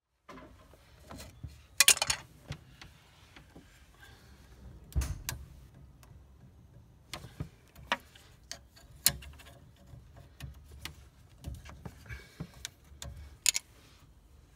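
Irregular clicks, taps and knocks from hands gripping and turning the black plastic handles of central heating isolation valves on copper pipework. The loudest is a short rattly burst about two seconds in.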